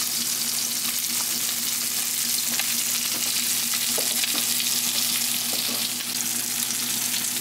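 Trout fillets frying in oil in a pan: a steady sizzle with a few faint spits, over a low steady hum.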